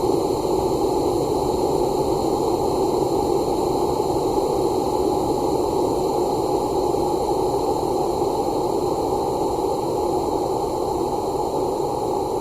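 Xiaomi phone notification sound stretched out to about two minutes, smeared into a steady, hiss-like drone with no distinct notes or breaks.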